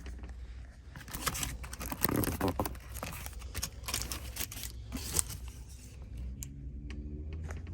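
Paper food wrapper crinkling and rustling as a takeout burger is handled, in an irregular run of crackles from about a second in until about five seconds in.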